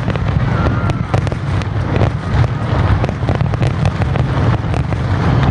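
Fireworks display: a dense, continuous string of bangs and crackles, several a second, over a steady low rumble.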